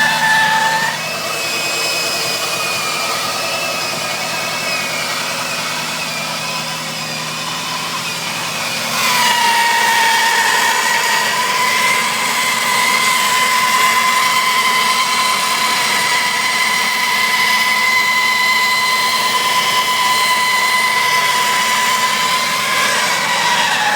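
Jeep Grand Cherokee WJ Overland engine idling with a continuous high-pitched screech. About nine seconds in the screech jumps to a lower, steadier and louder tone that holds until near the end.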